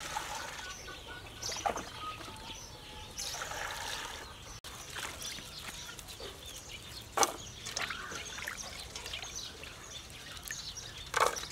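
Water poured from a plastic scoop into a steel basin, then splashing and trickling as lemongrass stalks and leafy greens are rinsed by hand in it, with a few light knocks against the basin.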